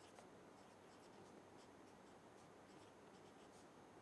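Faint scratching of a felt-tip marker writing on paper, a string of short quick strokes.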